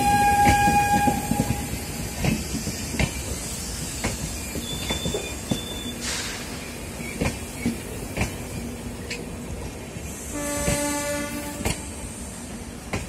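Coaches of the departing Rajdhani Express rolling slowly past, wheels knocking irregularly over rail joints. A short horn note sounds at the start, and a longer, deeper train horn blows from about ten seconds in.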